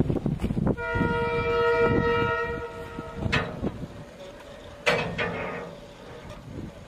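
Locomotive horn sounding one steady blast of about two and a half seconds, followed by two sharp knocks.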